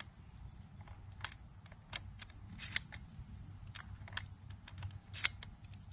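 Irregular series of sharp clicks and snaps from 12-gauge shotshells being pushed into a semi-automatic shotgun's box magazine, over a low steady outdoor rumble.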